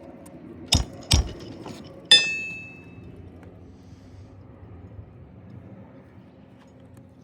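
Hammer blows while nailing a roofing shingle back down: two dull strikes about half a second apart, then a sharper metal-on-metal strike that rings for about a second.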